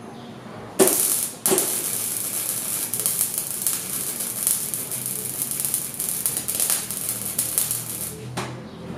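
Wire-feed (MIG) welding arc crackling and sizzling as steel rods are joined. The arc strikes about a second in, breaks off briefly, restarts and burns steadily, then stops just before the end.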